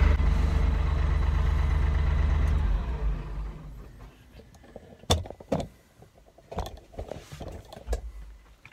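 Massey Ferguson 1835 compact tractor's diesel engine running steadily, heard from inside the cab, then winding down and stopping about three seconds in. A few scattered knocks and clicks follow.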